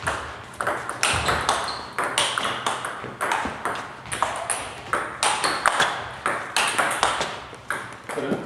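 Table tennis balls clicking off bats and table tops, about two to three sharp clicks a second at an irregular beat, as if several rallies overlap across the hall, each click with a short ring-out.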